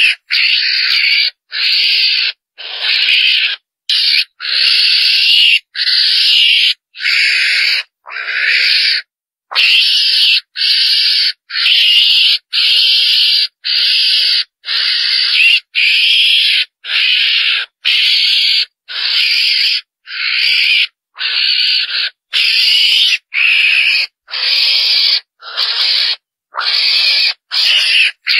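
Mongoose (chồn đèn) lure call: a short, high, raspy squeal repeated about once a second without a break, each call lasting under a second. It is the call used to draw mongooses in.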